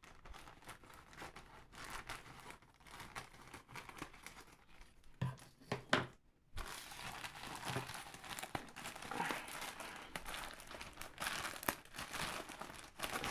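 A speaker's retail box being opened by hand: packaging crinkling and crackling with some tearing, and a couple of soft knocks about halfway through followed by a brief pause.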